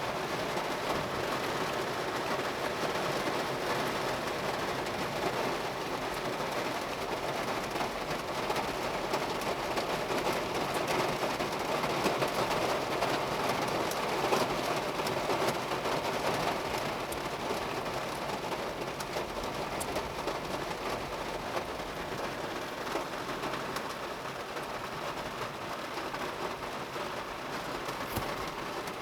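Heavy thunderstorm rain pelting steadily on a car, a little louder around the middle.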